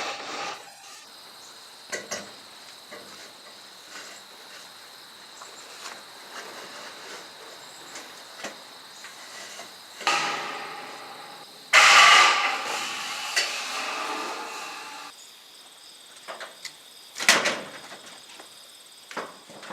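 Crickets chirping steadily, with several loud clatters and scrapes of sheet-steel panels being handled, the longest about halfway through.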